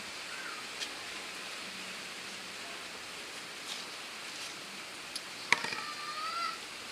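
Steady hiss of rain in the background. Near the end a sharp click, followed by a brief high squeaky tone.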